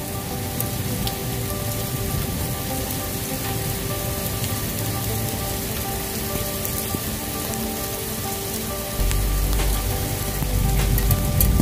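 Hail and rain falling steadily on grass and shrubs, an even hiss with scattered sharp ticks of stones striking. Held musical notes sound underneath, and a low rumble sets in about nine seconds in and grows louder.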